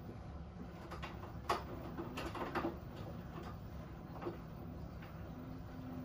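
Front-loading washing machine on its rinse cycle: the drum turns with a steady low hum while wet laundry tumbles inside, giving a few short knocks, the sharpest about a second and a half in.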